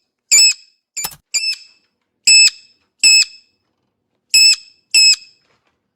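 Sun conure screeching: about seven short, loud, high-pitched calls, several coming in quick pairs, with silent gaps between them.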